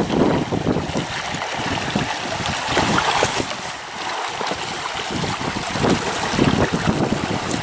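Wind buffeting the microphone in uneven gusts, over small waves washing against a rocky riprap bank.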